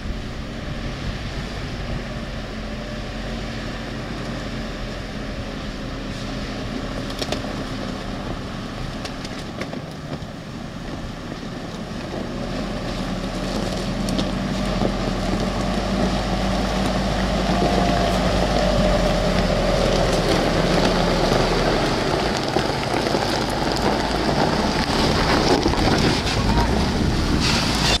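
Solid-axle-swapped 2001 Nissan Xterra driving slowly over loose gravel, its engine running steadily and tyres rolling on rock. It gets louder about halfway through as it comes close.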